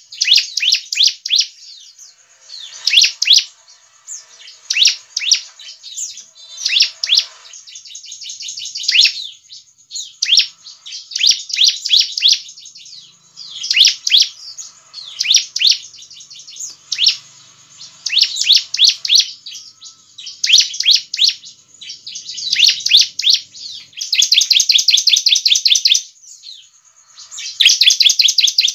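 Bar-winged prinia (ciblek) singing: repeated bursts of rapid, high chirping notes every second or two, with longer, denser trills near the end.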